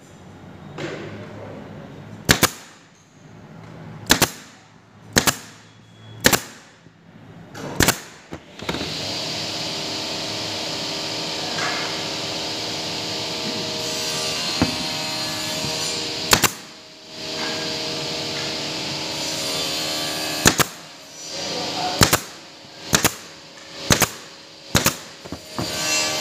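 Woodworking sounds: sharp knocks, like blows on wood, about once a second. Then a power tool runs steadily for several seconds, stops briefly, runs again, and a quick run of knocks follows near the end.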